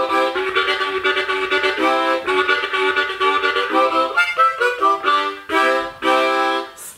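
Harmonica played in rhythmic chords in a chugging train rhythm. In the second half the chords break into short separate blasts, ending on two longer held chords.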